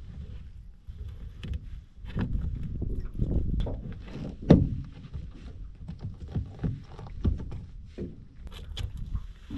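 Handling noise as a live mud crab is held down on a carpeted boat deck and its claws are bound: irregular knocks and scuffs over a low rumble, with one sharper, louder knock about halfway through.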